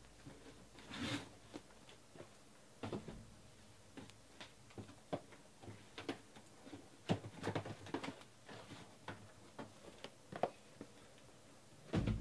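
Irregular taps, clicks and short rustles of things being handled close to the microphone, with a louder bump near the end.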